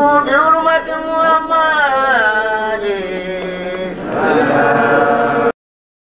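A man's voice chanting an Arabic religious chant in long held notes that glide up and down. It cuts off suddenly near the end.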